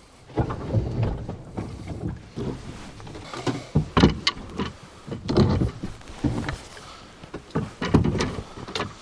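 Irregular knocks and low thumps from a rowboat, the loudest about four, five and eight seconds in.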